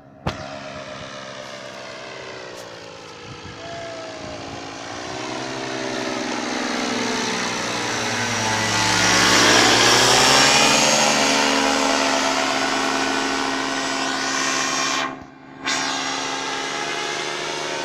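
Paramotor engine and propeller droning as the powered paraglider flies low past, growing louder to a peak about nine to ten seconds in, with the pitch dropping as it passes, then easing off a little. The sound cuts out briefly near fifteen seconds.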